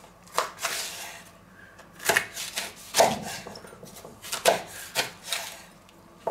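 Chef's knife cutting through a leek on a wooden cutting board: a series of separate, irregularly spaced cuts, each ending in a knock of the blade on the board.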